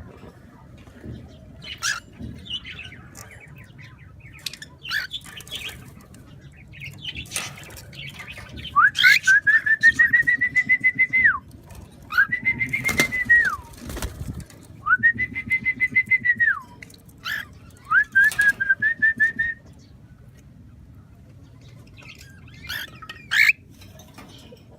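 Pet birds calling: scattered short chirps and clicks, then four long, fast-pulsing calls, each rising, holding at one pitch and dropping away, over about ten seconds in the middle.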